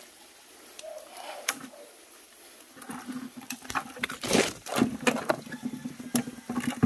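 Scuffling and handling noise as a hooked freshwater eel is wrestled and grabbed on rocky ground. Mostly quiet with a few faint clicks at first; from about three seconds in come rustling, scraping and a run of sharp knocks and thumps, loudest near the end.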